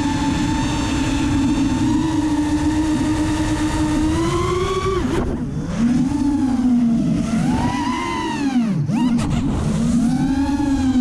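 Racerstar BR2205 2300kv brushless motors and 5-inch propellers of a racing quadcopter whining, heard from the onboard camera. The pitch holds steady for about five seconds, then falls sharply and swings up and down with the throttle, dipping low about nine seconds in before climbing back.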